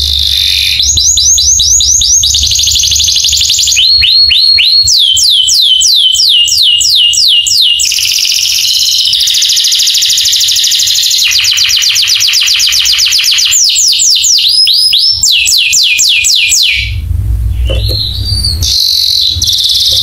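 Domestic canary singing a long, loud song made of rapid trills: runs of fast repeated downward-sweeping whistled notes, switching to a new trill every second or two. A low rumble comes in for a couple of seconds near the end.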